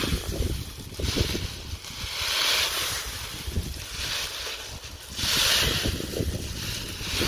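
Gusty wind buffeting the microphone with an uneven low rumble, rising twice into louder swells of rushing hiss.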